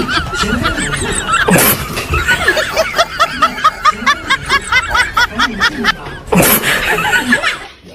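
Dubbed-in laughter, a quick run of high-pitched giggles about four a second, over background music. A short rushing noise comes about one and a half seconds in and again near the end.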